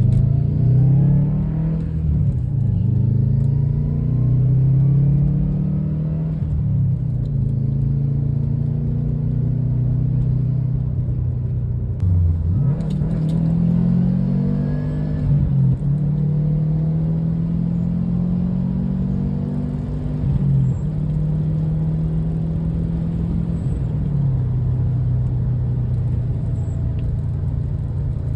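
Subaru WRX's turbocharged flat-four engine pulling hard through the gears. The pitch climbs under load and drops at each shift, about five times.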